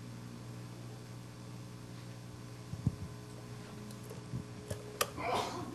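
Steady low room hum, with a few faint knocks and a brief rustle near the end.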